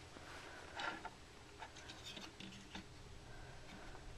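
A few faint, scattered light clicks and taps over quiet room tone.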